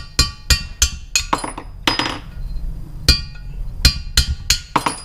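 A hammer striking a socket and extension set on the valve spring retainers of an aluminium cylinder head, knocking the stuck valve collets free: about a dozen sharp metallic blows with ringing, irregularly spaced, with a pause of about a second near the middle.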